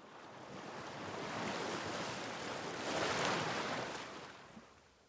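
A rushing, wave-like whoosh of noise that swells up from quiet, peaks about three seconds in and fades away, like an intro sound effect.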